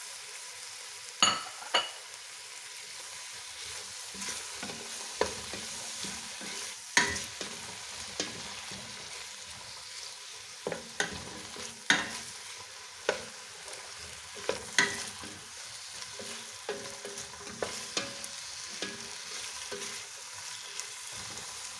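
Diced potatoes and carrots frying with onion in oil in a pot: a steady sizzle, with a spoon stirring and knocking sharply against the pot about a dozen times, a few knocks ringing briefly.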